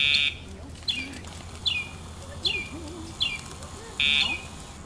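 A bird calling over and over, each call a short falling chirp, about one every three-quarters of a second. A short electronic beep sounds at the very start and again about four seconds in.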